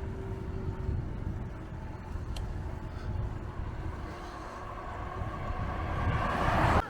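A road vehicle approaching along the road, its noise growing louder until it cuts off abruptly near the end.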